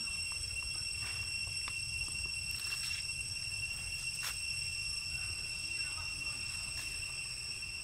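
Steady, high-pitched insect drone from the surrounding forest, unbroken and even in pitch, over a low rumble.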